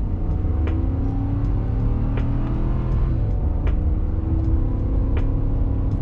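The F250's 6.2-liter gas V8 heard from inside the cab, pulling under acceleration with its note climbing and falling back about halfway through at an upshift through the six-speed automatic. A faint tick repeats about every three-quarters of a second.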